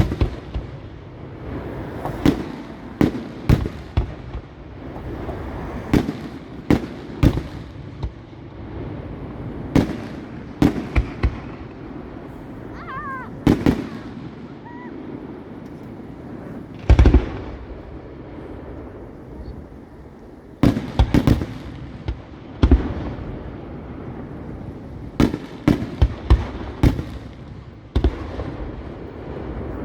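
Category 4 display fireworks: aerial shells bursting in an irregular series of sharp bangs, sometimes in quick clusters, with the loudest bang about 17 seconds in and a brief whistle around 13 seconds.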